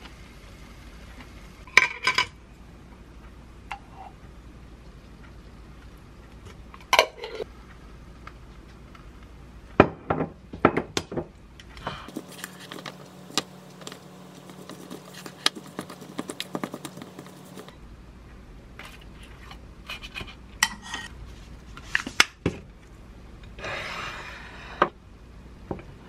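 Kitchen handling sounds: ceramic plates and a wooden bowl knocked and set down on a counter, with scattered sharp clinks. A spoon mixes rice and chives in a wooden bowl, making quick small ticks and scrapes.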